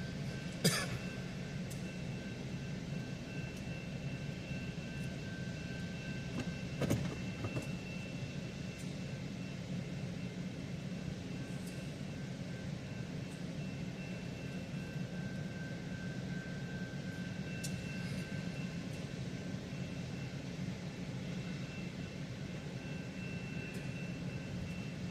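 Steady low engine hum with faint steady high-pitched tones, broken by two short sharp clicks, one about a second in and one about seven seconds in.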